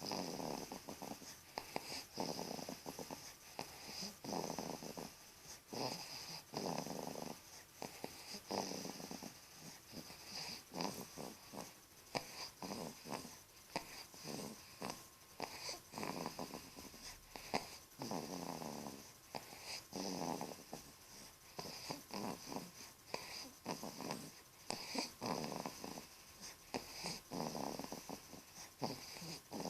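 Two-month-old baby snoring in his sleep, a snore on each breath repeating about every one to two seconds.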